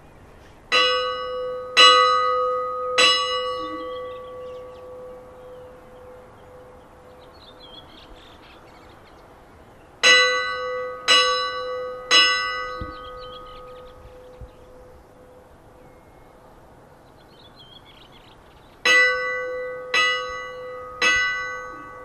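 The larger church bell of Kaupangskirkja rung in three groups of three strokes, the strokes about a second apart and the groups some eight seconds apart. Each stroke rings on and slowly dies away.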